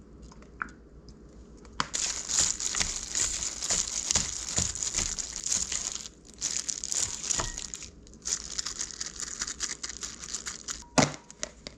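Crinkling and rustling of packaging being handled, in three stretches with short breaks, then one sharp click near the end.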